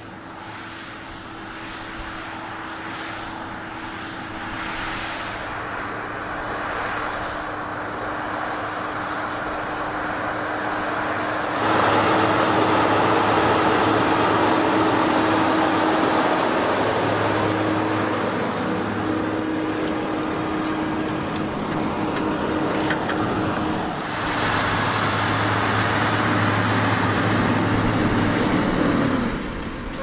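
Fendt 939 Vario tractor engine running steadily under heavy load while pulling a deep plough through the soil. The sound grows louder in sudden steps about twelve and twenty-four seconds in, and drops just before the end.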